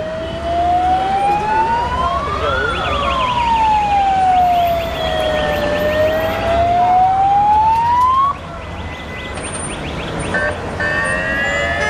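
Police car siren wailing, sliding slowly up, down and up again, with a faster pulsing siren tone above it for a few seconds; the wail cuts off suddenly about eight seconds in.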